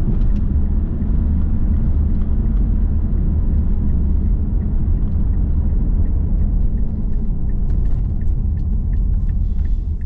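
Steady low rumble of tyre and engine noise inside a car cruising on a sealed country road. From about halfway through, faint regular ticking of the turn indicator, about two ticks a second, as the car comes up to an intersection.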